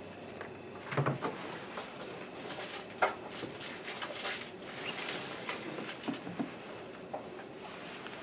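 Fabric rustling as it is handled and folded, with a few light knocks and clicks spaced a second or more apart. No sewing machine running.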